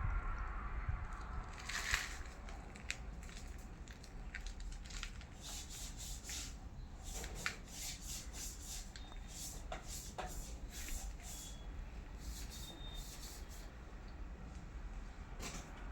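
Plumbing hand work: a run of short clicks, taps and rubs of tools and pipe fittings being handled, over a steady low hum.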